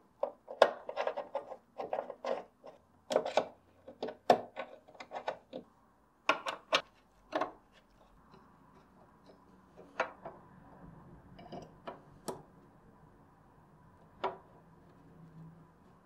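Small metal clicks and clinks of a hand screwdriver and steel screws as a safe lock body is screwed into place, coming thickly for about seven seconds, then only a few scattered clicks.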